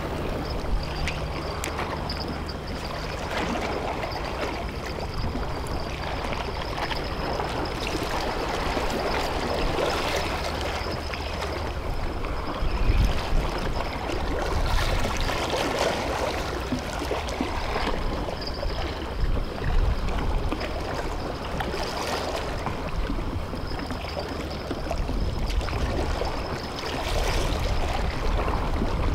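Seawater washing and lapping against a breakwater, an uneven wash with some louder surges, over a thin steady high whine. A low hum is present during the first half.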